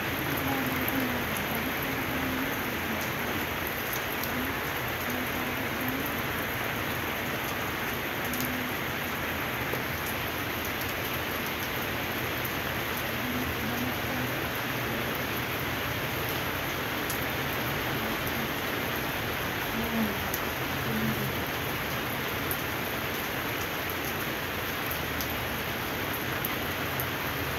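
Steady rain falling on wet pavement, an even continuous patter.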